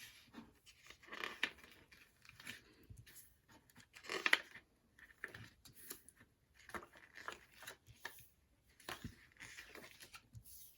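Plastic packaging being torn and crinkled while a CD jewel case is opened by hand, in a string of irregular rustles and short crackles, the loudest about four seconds in.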